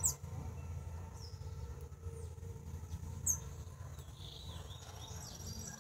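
Small songbird chirping: a handful of short, high chirps that fall quickly in pitch, the loudest at the very start and about three seconds in. A steady low rumble runs underneath.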